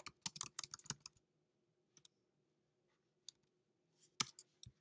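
Faint typing on a computer keyboard: a quick run of keystrokes in the first second, then a few separate clicks, the loudest near the end.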